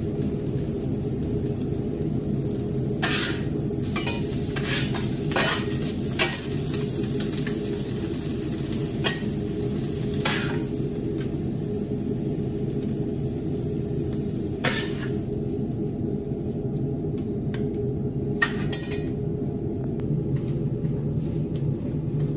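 Sausage and salami slices frying on a steel griddle plate over a charcoal grill, sizzling steadily over a low rumble. Scattered sharp clicks and scrapes of metal against the plate come about a dozen times as the meat is handled.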